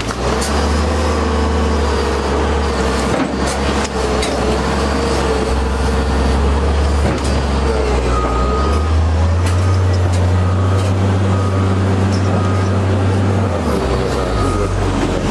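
Excavator diesel engine running steadily under hydraulic load. Its low hum steps up in pitch about two-thirds of the way through and drops back near the end.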